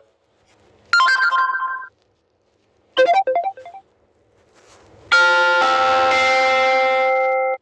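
Samsung Galaxy S20 notification tones played one after another: a short bright chime about a second in, a quick run of short plucked notes about three seconds in, and a longer held chord from about five seconds in that stops near the end.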